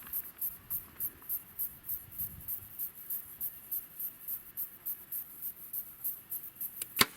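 High-pitched insect chirping pulsing about four to five times a second, then near the end a single sharp crack from a bow being shot, followed closely by a fainter snap.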